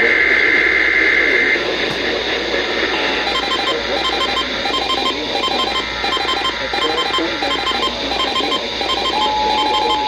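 Emergency Alert System broadcast over a noisy radio. It opens with the screeching digital burst of a SAME header for about a second and a half, then gives a string of short repeating beeps over static, and near the end the steady two-tone EAS attention signal begins.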